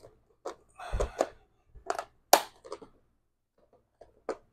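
Clicks and knocks as a storage container's lid that won't fit is pushed and worked into place, with a short rustle and thud about a second in and a sharp click a little over two seconds in.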